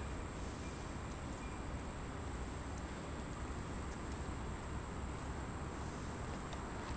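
Steady outdoor background: a continuous high-pitched whine over a low rumble, with a few faint ticks.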